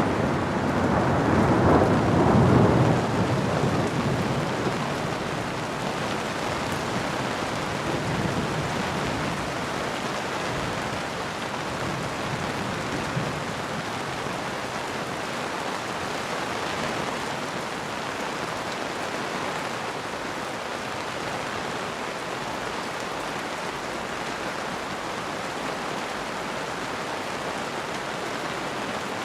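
Steady heavy rain with a roll of thunder that swells at the start, peaks a couple of seconds in and rumbles away over the next few seconds, with fainter rumbles after; then only the steady rain.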